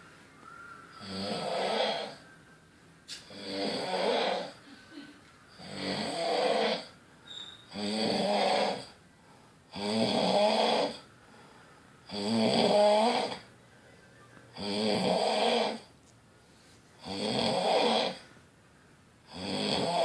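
A person snoring in a steady rhythm, about nine snores, each a second or more long, with a quiet in-between breath roughly every two seconds.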